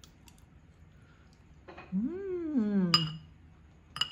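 Metal spoon and fork clinking against a ceramic bowl, two bright ringing clinks about three and four seconds in, with faint scraping before them. Just before the first clink, a single drawn-out hum of enjoyment from the person eating, rising then falling in pitch.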